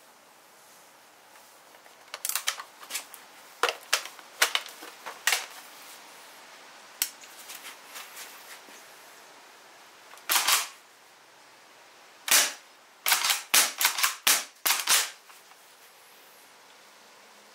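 Airsoft pump-action shotgun being worked by hand: sharp mechanical clacks and snaps in irregular groups, with a run of quick clicks a little after twelve seconds in.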